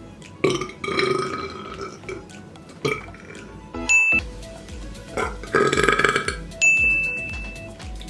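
A person burping loudly, two long burps, about half a second in and again around five and a half seconds in, over background music with a steady beat.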